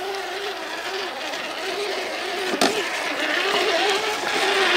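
Electric drive whine of 1/10-scale RC crawler trucks working up a rocky trail, the pitch wavering with the throttle and growing louder as the lead truck comes close. A single sharp knock about two and a half seconds in.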